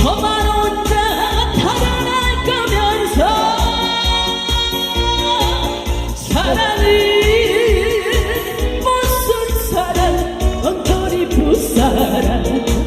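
A singer's voice holding long, wavering notes over instrumental accompaniment with a steady beat.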